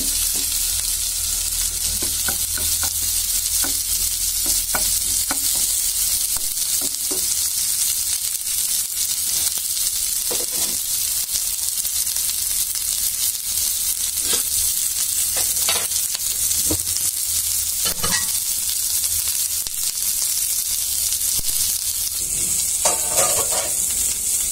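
Sliced onions and green chillies sizzling steadily in hot oil in a non-stick pan, with scattered light taps and scrapes of a wooden spatula as they are stirred. The sizzle thins out near the end, where there is a short louder sound.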